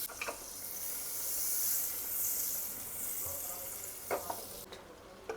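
Butter sizzling as it melts in a hot pan, a steady hiss that dies down near the end. There are a couple of light knocks of a utensil against the pan.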